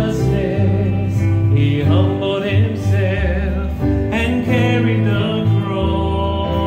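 A man singing a contemporary worship song into a microphone over a live band of guitars and keyboard, with sustained low bass notes under the melody.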